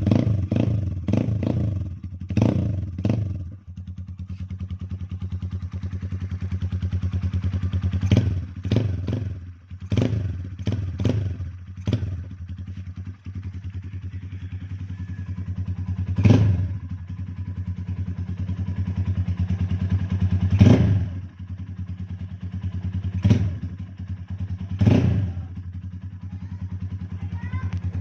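Sigma 250 motorcycle engine with a modified intake manifold, idling steadily and blipped on the throttle: a quick string of revs at the start and again about a third of the way through, then single sharp revs every few seconds.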